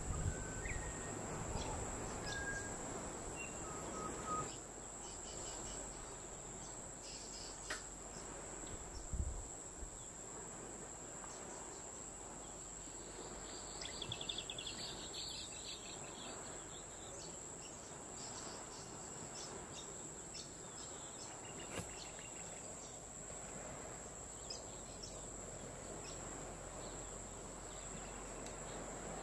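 Steady, high-pitched drone of insects, with a few short bird chirps in the first few seconds and a brief trilling bird call about halfway through.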